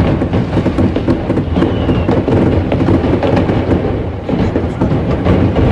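A warehouse stock of fireworks going off in a fire: many shells and firecrackers bursting together in a dense, unbroken crackle of sharp bangs over a low rumble.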